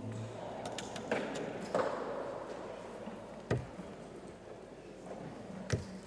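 Two steel-tip darts striking a Winmau Blade 6 bristle dartboard, two sharp thuds a little over two seconds apart. Near the start, darts are pulled out of the board with a couple of softer knocks, over the murmur of a busy hall.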